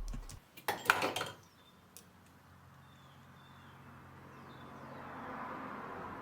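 A short noisy clatter about a second in, then a quiet stretch with a few faint, high bird chirps.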